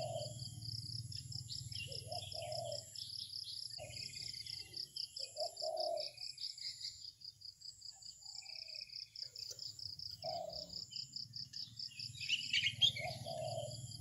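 An insect trilling steadily in a fast, even pulse, with small birds chirping near the start and again near the end and a short low call every few seconds, over a faint low hum.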